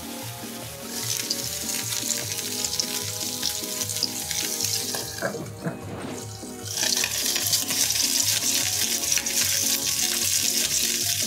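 Broccoli sizzling as it fries in a pan while being stirred with a spatula, over light background music. The sizzle breaks off for a couple of seconds near the middle, then comes back.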